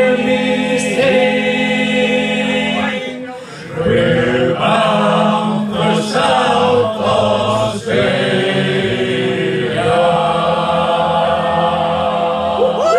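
Male a cappella shanty choir singing the closing lines of a sea shanty in several-part harmony. There is a short breath about three and a half seconds in, and the song ends on a long held chord.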